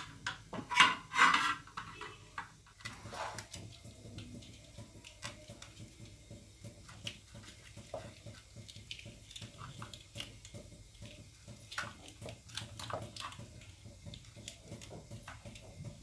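Kitchen handling noises while raw chicken is fitted onto a metal roasting rack: a few loud clatters in the first three seconds, then a run of small clicks and knocks.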